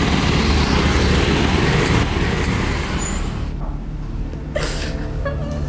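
Motorcycle engine running as two riders pull away; it fades out about three seconds in. Then a woman whimpers and sobs in short broken cries.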